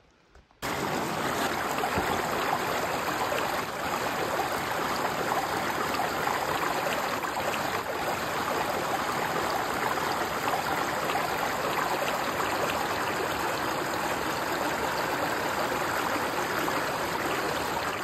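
Water running over rocks in a shallow rocky stream, a steady rush that starts suddenly about half a second in.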